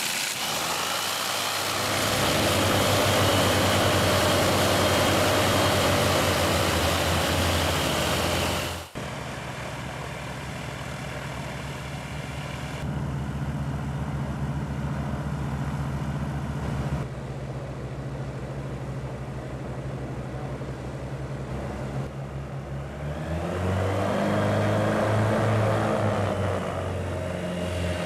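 Twin wing-mounted engines of a small experimental propeller aircraft running, propellers turning, with a steady engine note. The sound breaks off abruptly about nine seconds in and comes back quieter, then the engine note rises and falls again near the end.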